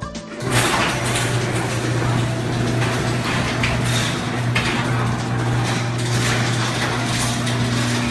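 Garage door moving under its opener, a steady motor hum with the rattle of the door running along its tracks, starting about half a second in. The door is being run after its broken spring was replaced.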